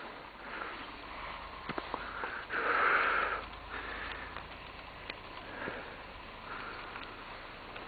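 Breathing and sniffing close to the microphone, a series of short noisy puffs, the loudest and longest about three seconds in, with a few small clicks between them.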